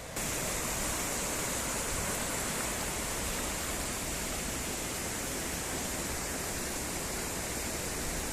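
Steady roar of rushing water from a waterfall, an even rushing hiss that sets in suddenly just after the start and holds level.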